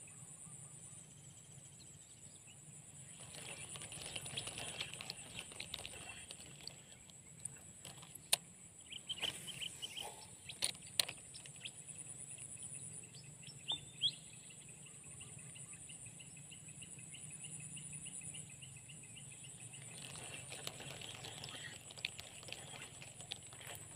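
Insects chirping in steady rhythmic pulses. Over this come bursts of rustling and a few sharp clicks from handling a fishing rod and spinning reel.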